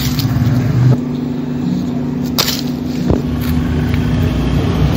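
Split firewood being laid into an iron ring stove, with a few knocks of wood on wood about two and a half and three seconds in, over a steady low hum.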